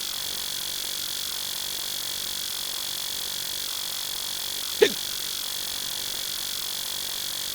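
Adult male hiccup sound effect, once, about five seconds in: a short, sudden vocal hic whose pitch drops quickly. A steady high-pitched tone runs underneath.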